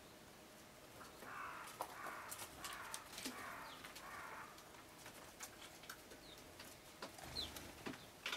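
Birds calling: a series of repeated call notes from about a second in to about four and a half seconds, then a short high falling note near the end, with scattered light clicks throughout.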